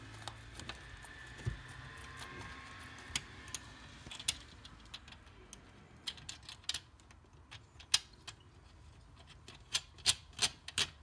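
Irregular small metal clicks and taps from hands working a metal cable connector into the knockout of a steel breaker panel, among the wires. The clicks come sparsely at first and bunch up, louder, near the end.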